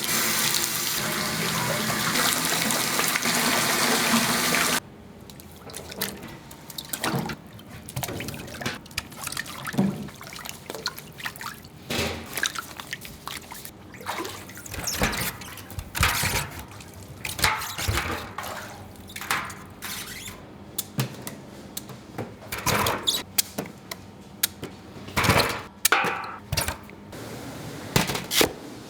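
Running water, loud and steady, for about five seconds until it cuts off abruptly; then irregular knocks, clicks and clatter of commercial kitchen work.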